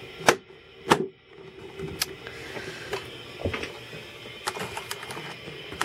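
Handling of a plastic tub enclosure: a few sharp clicks and knocks, the two loudest in the first second and lighter ones scattered after, over a faint steady hum.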